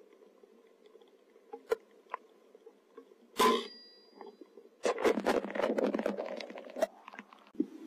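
A single sharp air rifle shot about three and a half seconds in, with a short ringing after it. About two seconds of rapid scrabbling and rustling follow.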